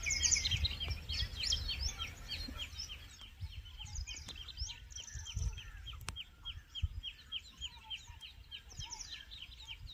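Birds calling outdoors: one bird repeats a short high chirp about three times a second throughout, while other chirps and trills sound above it, busiest in the first second. A low, uneven rumble runs underneath.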